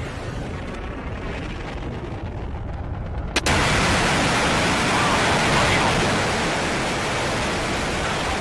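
Soyuz 2.1a rocket engines' exhaust noise at liftoff: a dense rushing rumble that jumps abruptly louder and brighter after a sharp click about three and a half seconds in.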